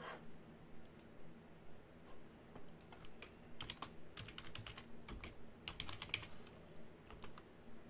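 Typing on a computer keyboard: scattered single keystrokes and a few quick runs of keys, the densest about three to six seconds in, as an address is entered into a search box.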